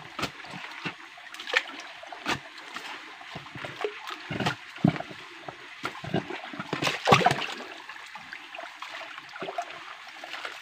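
Shallow rocky stream running steadily, with irregular splashes and knocks from wading and moving stones in the water; the loudest cluster comes about seven seconds in.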